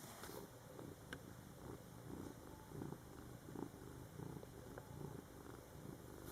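Domestic cat purring faintly and steadily, in a low rumble that rises and falls with its breathing.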